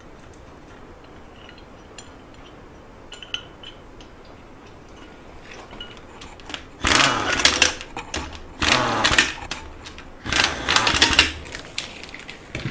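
Impact wrench running bolts into a bracket on a Subaru EJ257 engine block: three rattling bursts of about a second each, starting about seven seconds in. Before them, faint clicks of parts being handled.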